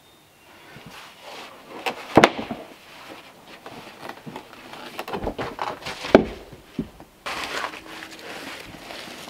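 A large field stone being rolled and shifted by hand on a wooden cart and onto the ground: scraping and grinding, with several sharp knocks. The loudest knocks come about two seconds and six seconds in.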